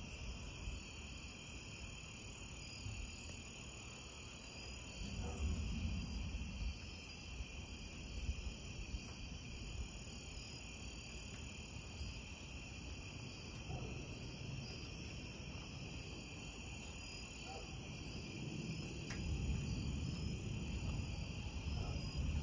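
Steady chorus of crickets and other night insects, with a rapid repeating chirp above it. Low rumbles of distant thunder rise about five seconds in and again near the end.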